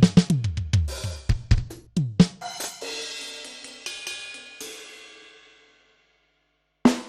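Electronic drum kit sounds from a dbdrums db10 V3 module being played: a quick run of tom, kick and snare hits under cymbals, then a crash left to ring and fade away. The sound cuts to silence for about a second before playing starts again near the end.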